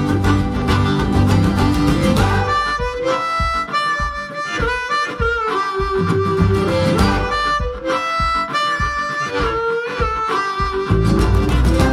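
Background music in a country-blues style. After about two and a half seconds the bass drops out, leaving a lead melody of held, bending notes, and the full band comes back near the end.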